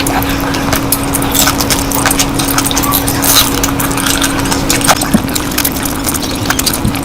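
Close-miked eating sounds: wet chewing and mouth clicks, irregular and continuous, over a steady low hum.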